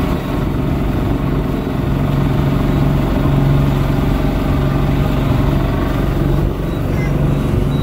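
Johnson 225 V6 two-stroke outboard running steadily with the boat under way, over a constant rush of wind and water.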